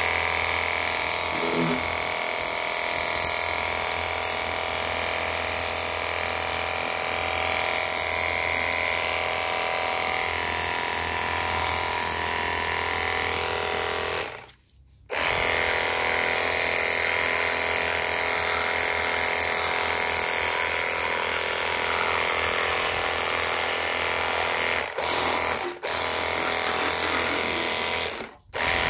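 Cordless battery-powered pressure washer running, a steady high motor and pump whine with the hiss of the water jet. It stops for about a second about halfway through and cuts out briefly twice near the end, as the trigger is released.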